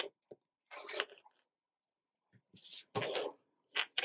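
Double-sided tape being pulled off its roll and pressed down onto paper: a few short rasping bursts with pauses between them.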